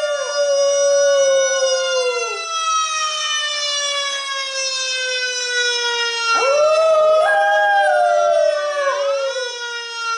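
A fire truck siren wailing with a slowly falling pitch, and a small terrier-type dog howling along with it. The dog's howls bend up and down, once at the start and again about six and nine seconds in.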